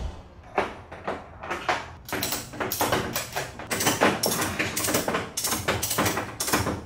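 Ratchet tie-down strap being cranked: a steady run of sharp metal clicks, about three a second.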